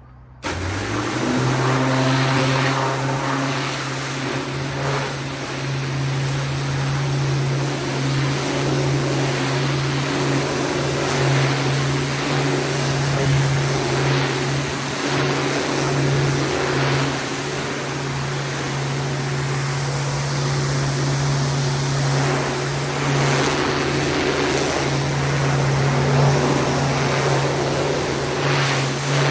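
Pressure washer starting up suddenly about half a second in and then running steadily: a low motor hum with the hiss of the water jet, the hiss rising and falling as the spray moves.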